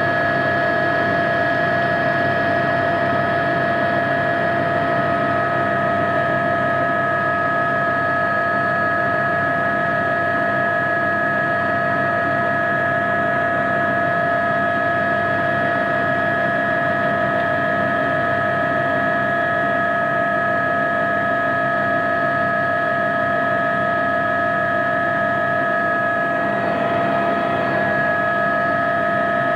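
Cabin noise of an Aérospatiale AS350B Squirrel helicopter in flight, its Turbomeca Arriel turboshaft and rotor running: a steady whine of several fixed high tones over an even rumble.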